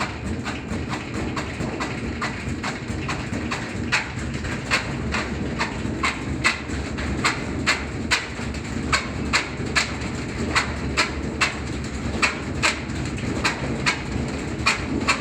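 2005 Whirlpool washing machine on high spin, running out of balance: a steady low drone with rhythmic knocking, about three knocks a second, as the unbalanced load throws the drum about.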